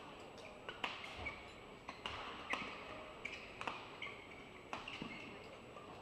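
Indoor sports arena ambience: a steady murmur of the crowd with irregular sharp taps, about one or two a second, some followed by short squeaks.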